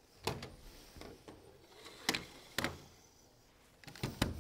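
A few sharp knocks and clicks from objects set down and handled on a work table, spaced irregularly, with a quick pair near the end.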